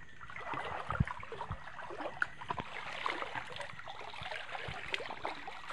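Shallow river water trickling and splashing lightly, stirred by someone wading through it, with a couple of dull low knocks about a second in.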